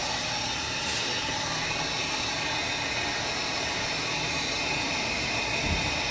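A 500-watt heat gun running steadily, its fan blowing with an even hiss while it warms the glass edges of an iPad to loosen the screen adhesive.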